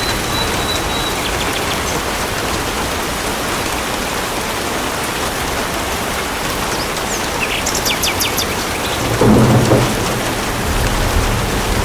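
Steady heavy rain, with a short low rumble of thunder about nine seconds in. A few quick high chirps come just before it.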